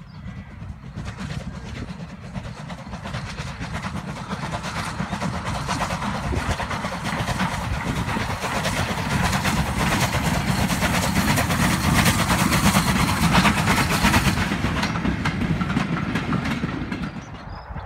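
Bulleid steam locomotive hauling a goods train past at close range: its steam exhaust and the rattle of the wagons over the rails grow louder to a peak a little after the middle. The sound cuts off suddenly near the end.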